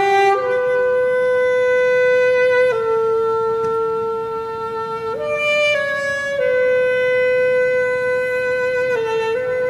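Solo saxophone playing a slow melody of long held notes, each lasting a couple of seconds, stepping up and down between a few neighbouring pitches.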